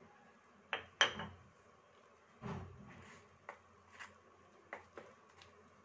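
Metal spoon clinking and scraping against a stainless steel mixing bowl while stirring milk into a thick wheat-flour batter. It gives a handful of short, irregular clinks, the sharpest about a second in.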